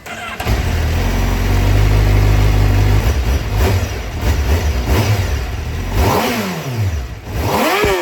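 Honda CBR1000RR-R Fireblade SP's inline-four engine running through its exhaust, then revved twice, the pitch sweeping up and falling back each time.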